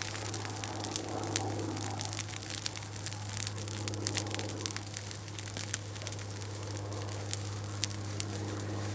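Steady low electrical hum under scattered crackling and rustling.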